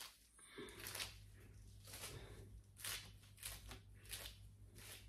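Faint swishes of a comb drawn through a straight bob lace-front wig, roughly one stroke a second, over a steady low hum.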